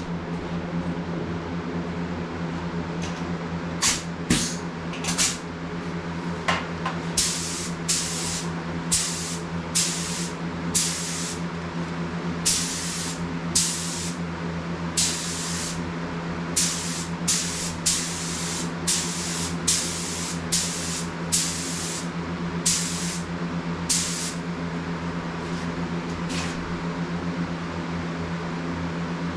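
Automotive paint sprayed onto a car body panel in many short hissing bursts, roughly one every half second to second, with the last of the paint. A steady low mechanical hum runs underneath.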